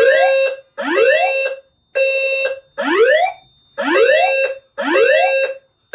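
Fire alarm evacuation tones: rising whoop sweeps repeat about once a second from the voice evacuation speakers. Over them, an EST Genesis low-frequency sounder pulses a steady low horn tone in a three-beat temporal pattern: three half-second beats, a pause of about a second and a half, then three more.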